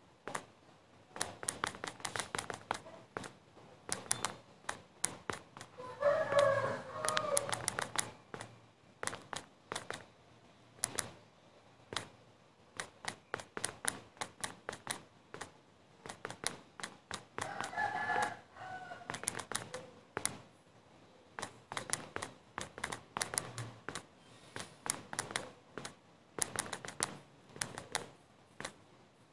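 Rapid, irregular clicks of text being typed on a phone's on-screen keyboard. A rooster crows twice in the background, about six seconds in and again around eighteen seconds.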